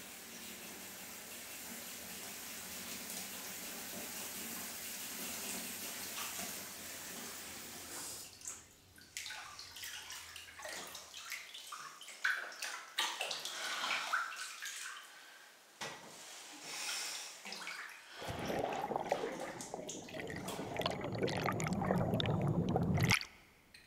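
Water in a bathtub: a steady rush of running water, then irregular splashing and sloshing as someone moves in the bath. Near the end a louder, fuller rush of water swells and cuts off suddenly.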